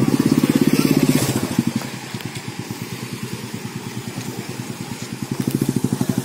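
Motorcycle engine running with an even, rapid beat, louder in the first second and a half and again near the end.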